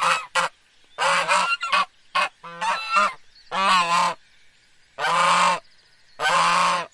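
Goose honking: a quick run of short honks in the first three seconds, then three longer, drawn-out honks about a second apart.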